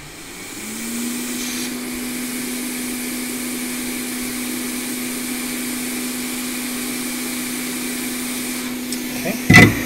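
Hot air rework station blowing, its blower spinning up in the first second and then holding a steady hum with a hiss, as it heats a surface-mount capacitor to desolder it. Near the end there is a sharp knock, the loudest sound.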